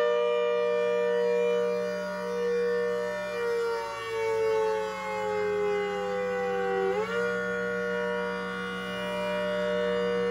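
ACA Hurricane 130 siren, supercharged by a Sutorbilt 4M Roots blower, sounding at full power: a chord of tones that holds, sags slowly in pitch, then jumps back up about seven seconds in, swelling and fading as the horn rotates. A steady low hum runs underneath.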